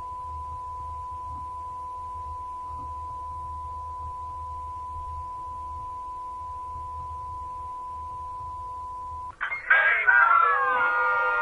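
A steady electronic beep at a single high pitch, with a fainter lower tone under it, held for about nine seconds and then cut off suddenly. Loud, excited cartoon voices break in for the last two seconds.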